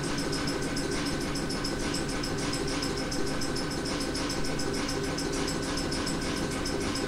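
AK-2 reciprocating air compressor under an Ohmi Railway 800-series electric car running while the train stands, a fast, even mechanical chugging over a steady whine.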